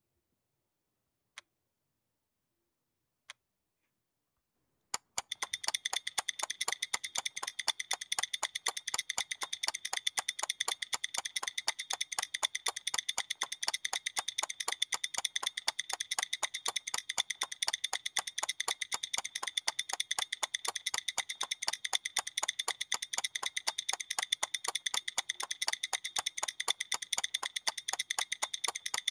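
Two faint clicks, then from about five seconds in the Huawei EMUI clock app's timer and stopwatch sound: rapid, steady electronic ticking as the counters run.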